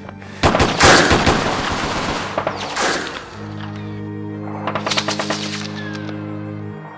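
Rapid automatic gunfire in a long burst from about half a second in to about three seconds, then a shorter burst around five seconds. A low, sustained music chord comes in about three seconds in beneath it.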